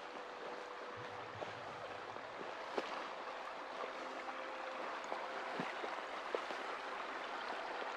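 Small forest creek running over rocks, a steady rushing and rippling, with a few light ticks.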